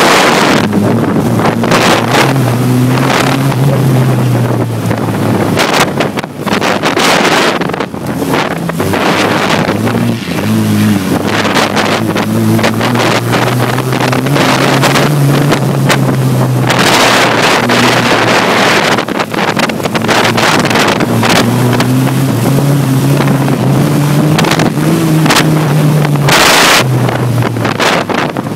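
Race car engine heard from inside the cabin during a lap, its pitch rising under acceleration and dropping briefly several times as the throttle is lifted for the bends, with wind buffeting the microphone.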